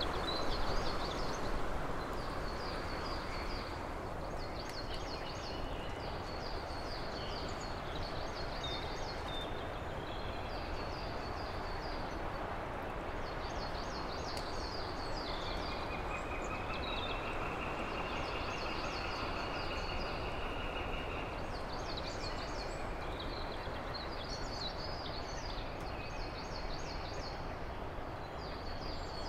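Outdoor nature ambience: a steady rushing noise, with small birds chirping in short repeated phrases on and off. A longer, even trill sounds for several seconds in the middle.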